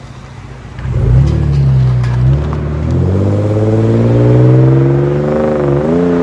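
2004 Ford Mustang's 3.8-litre V6 through a true dual exhaust with Flowmaster Flow FX mufflers, accelerating away: the exhaust note comes in loudly about a second in and climbs steadily in pitch, dips briefly near the end as it shifts up, then climbs again.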